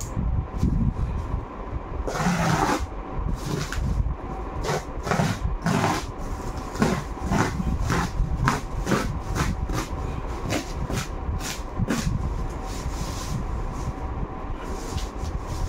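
Woven plastic sack wrapping being slit and torn open with a blade: a longer rip about two seconds in, then a run of short rips and scrapes, about two a second, over a steady low hum.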